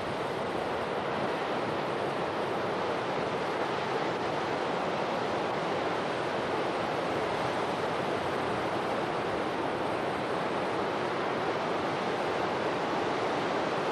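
Steady rushing noise of a landslide and floodwater pouring into an open-pit tin mine, the earth collapsing and the water surging into the pit.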